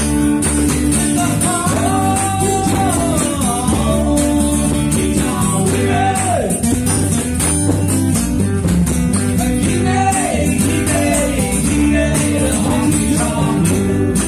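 Live acoustic band: two strummed acoustic guitars and a cajón beat under a male lead vocal singing in phrases, with short gaps between lines.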